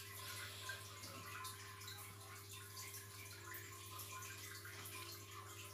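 Thick pudding mixture simmering in a saucepan, faint bubbling and crackling as a wooden spoon stirs it. A steady low hum runs underneath.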